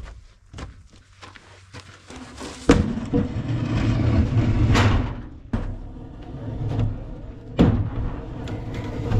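Round wooden fence posts being loaded onto a trailer: light steps and knocks, then a heavy thud about three seconds in, a rough scrape of wood sliding along the pile, and another heavy thud near the end.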